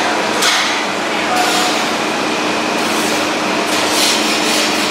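Steady café room noise: a constant mechanical hum and hiss, with faint voices in the background.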